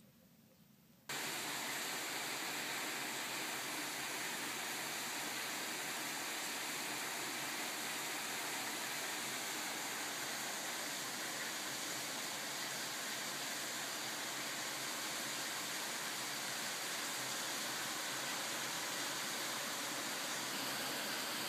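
A steady, even hiss starts abruptly about a second in and holds without change.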